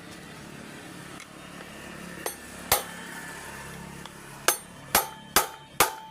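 A tool strikes metal with sharp, ringing knocks: two single knocks, then four in quicker succession near the end, over a steady low hum.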